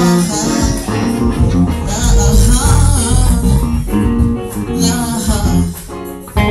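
Live band playing loud music with guitar to the fore over a heavy bass. The music dips briefly about six seconds in, then comes back with a sharp loud hit.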